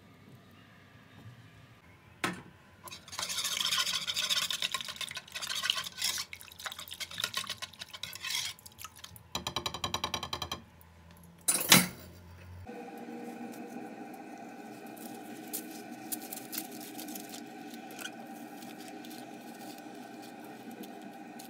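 Wire whisk beating a liquid egg, milk and oil mixture in a mixing bowl: rapid clicking and sloshing strokes, with a fast even burst near the middle and a sharp knock against the bowl just before the whisking stops. After that, a steady hum with faint crackles.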